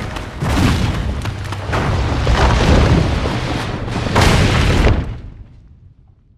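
Animated-film sound effect of a cave rumbling and rock crashing down: a loud, continuous rumble with several heavy crashes, the loudest about four seconds in, then it cuts off about five seconds in and dies away.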